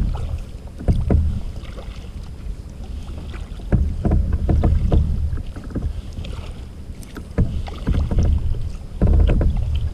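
Kayak paddle strokes on calm sea water: the blades dip and splash, and water drips off them in short clicks. The strokes come in clusters every two to three seconds, each over a low rumble.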